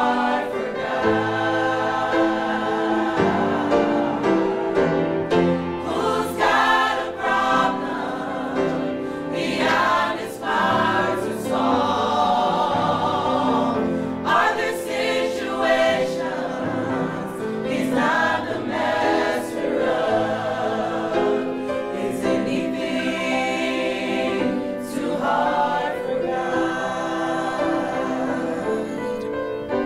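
Gospel choir singing a slow song in harmony, with sustained chords that change every second or two.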